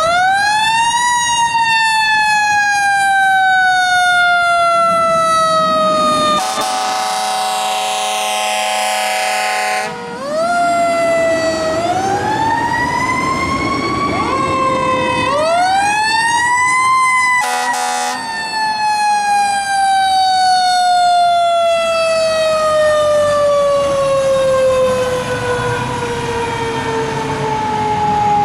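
Fire apparatus sirens on a Code 3 run. A siren spins up quickly and winds down slowly in long wails, with a second siren wailing over it. Steady horn blasts cut in, one long one about seven seconds in and a short one around seventeen seconds.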